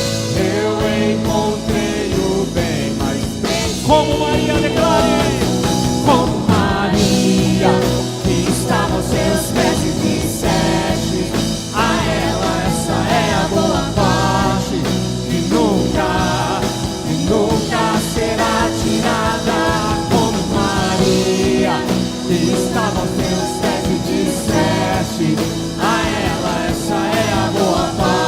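Live worship band playing a song with singing over it.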